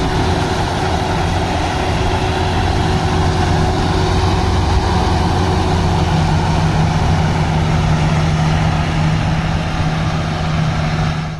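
Rice combine harvester running steadily: a constant engine drone over a broad mechanical noise, which cuts off suddenly at the end.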